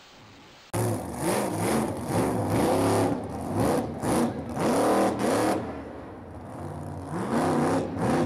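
Monster truck engine revving hard in repeated surges, its pitch climbing and falling with each stab of the throttle. It cuts in abruptly under a second in and eases off briefly about six seconds in before revving again.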